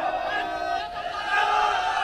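Large body of marching cadets shouting together in unison, many voices overlapping in a steady chorus of calls.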